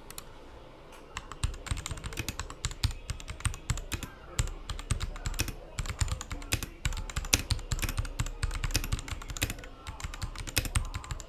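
Typing on a Royal Kludge RK61 60% mechanical keyboard: a fast, uneven run of key clicks that starts about a second in.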